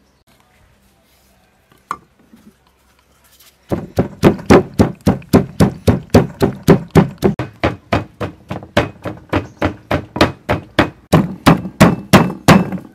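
Wooden pestle pounding chopped green herbs in a wooden mortar: steady, evenly spaced thuds about four a second, starting about four seconds in.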